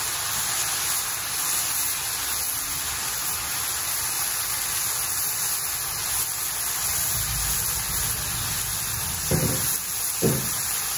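Chicken searing in a cast iron skillet over a propane burner: a steady sizzle and hiss. Two brief low sounds come near the end.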